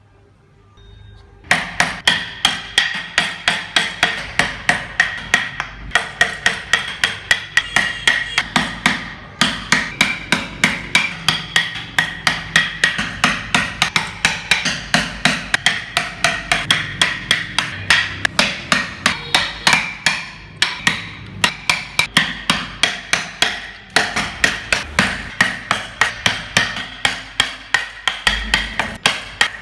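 A hammer striking repeatedly in quick, even blows, about four a second, each with a short ringing tone. The hammering starts about a second and a half in and pauses briefly twice.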